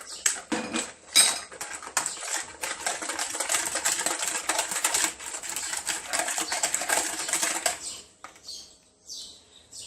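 Batter of eggs, milk, melted butter and sugar mixed by hand in a bowl: a utensil knocks rapidly and steadily against the bowl for about eight seconds, then stops, leaving a few scattered knocks.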